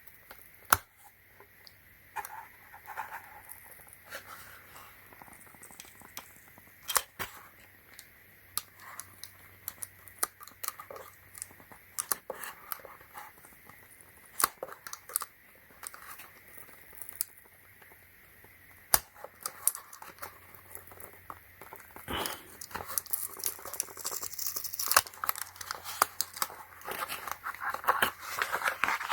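Hands working small plastic parts and packaging: scattered sharp clicks and taps, then, from about three-quarters of the way through, a longer stretch of crinkling and tearing of packaging that grows louder near the end.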